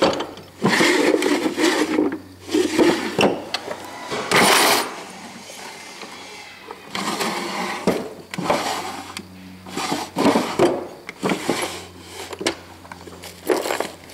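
Wooden drawers of an old parts cabinet being pulled open and pushed shut: a series of scraping bursts of wood sliding on wood, the loudest a little over four seconds in.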